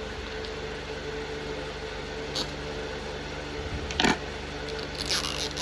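Steady room hum with a few brief handling noises from unboxing a toy: a short rustle about two seconds in, a louder knock about four seconds in, and a cluster of scraping noises near the end.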